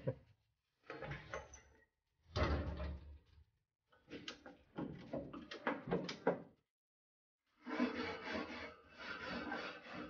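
Stainless-steel gas grill being worked on: metal knocks and clatter of the hood and grill parts, then near the end a steady scraping as a wire brush is rubbed across the preheated cooking grates.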